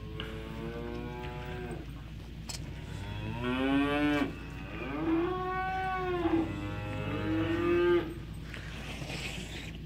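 Young cattle mooing: four long calls one after another, each rising and falling in pitch, the last ending about eight seconds in.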